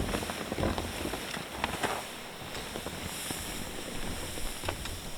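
Snowshoes crunching through deep fresh snow in uneven steps, with a faint rustle of wind.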